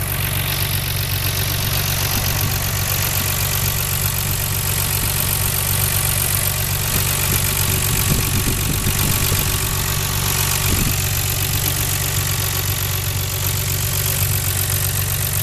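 Nissan R32 Skyline GT-R's RB26DETT twin-turbo straight-six idling steadily, heard up close in the open engine bay. It runs evenly with no misfire.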